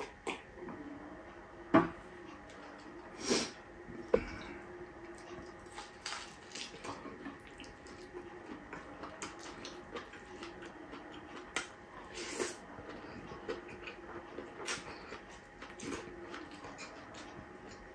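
Eating sounds: a person eating rice and fried pork chop by hand from a plate, with chewing, lip smacks and small clicks of fingers and food on the plate. There are a few sharper knocks in the first four seconds, the loudest about two seconds in, over a faint steady hum.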